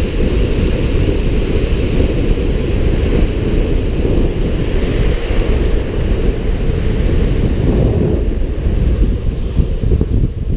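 Wind buffeting an action camera's microphone at speed, mixed with the steady rumble of longboard wheels rolling on asphalt.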